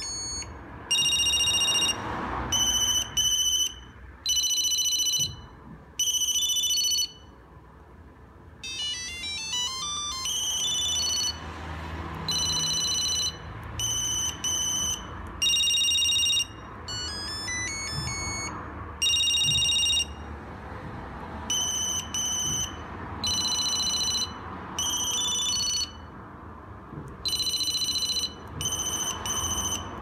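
Ericsson SH888 mobile phone playing its built-in ringtones through its small loudspeaker as the ring-type menu is scrolled: bright electronic beeping ring signals in repeated bursts, with a quick rising run of notes about nine seconds in. Faint button presses and handling run underneath.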